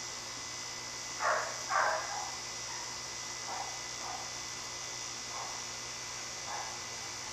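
Steady high-pitched chirring of insects, with a few short soft sounds over it, the two loudest close together about a second and a half in.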